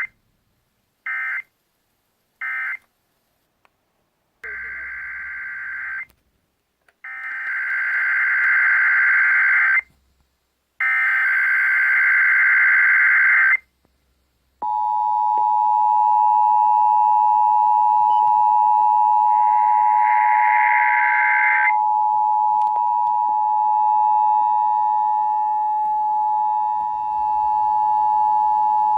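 Emergency Alert System signalling received over the radio: three short bursts of digital data tones (the end-of-message code), then three longer data bursts (the SAME header of the next test). About halfway in, the steady two-tone attention signal (853 and 960 Hz) begins and holds, with one more brief data burst over it.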